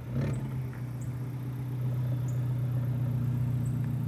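Alfa Romeo 4C's turbocharged four-cylinder engine running at low revs as the car is driven slowly forward onto the car transporter's upper deck. A brief clunk comes just after the start, and the engine grows a little louder about two seconds in as it is given gas.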